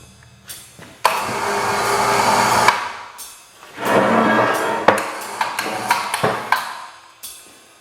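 Background music over workshop tool noise: two bursts of a power tool, one starting suddenly about a second in and lasting about a second and a half, another around four seconds in, with several sharp knocks between.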